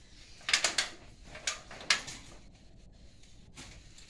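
A run of sharp knocks: three in quick succession about half a second in, then two more over the next second and a half.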